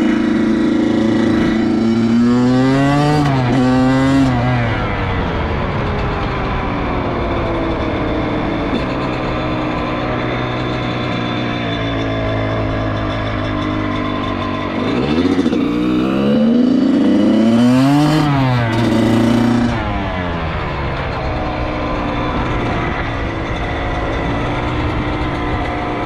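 Dirt bike engine running as the bike is ridden, mostly at a steady pitch. It is revved up and back down twice, briefly a few seconds in and again, louder, about two-thirds of the way through.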